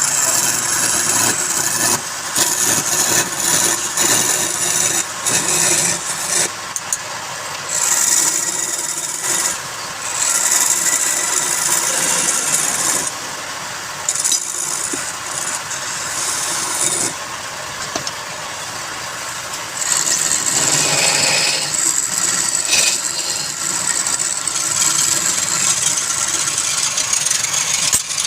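Wood lathe running, with a turning tool cutting the spinning wood in repeated passes: a hissing scrape that comes and goes over the machine's steady hum.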